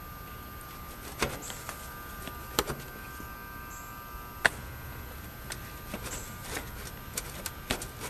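Quarter-inch spade connectors on wire ends being pushed onto the terminals of an HVAC run capacitor: a few scattered small clicks and handling rustles, the sharpest about four and a half seconds in.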